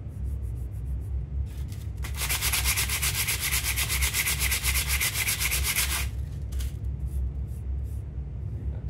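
Wire wheel brushing a piece of oak: a harsh rasping noise about two seconds in that lasts about four seconds, with brief shorter rasps before and after, over a steady low rumble.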